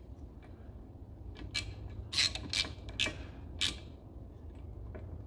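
A few short metallic scrapes and clicks, about one every half second for a couple of seconds, as the jet pump housing and its cone are handled during reassembly, over a low steady hum.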